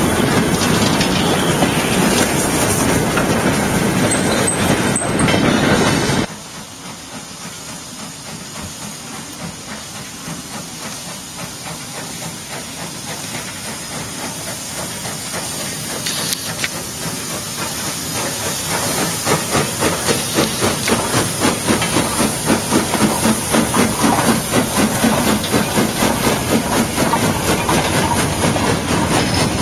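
A steam train passing close by, a dense rumble and clatter, cut off suddenly about six seconds in. Then a steam locomotive at work further off: its exhaust grows louder and, in the second half, becomes a steady, regular chuffing of exhaust beats.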